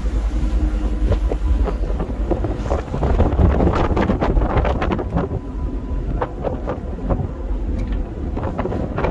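Tugboat engine running steadily under way, a low rumble with wind buffeting the microphone. Irregular crackles and knocks come in from about three seconds in.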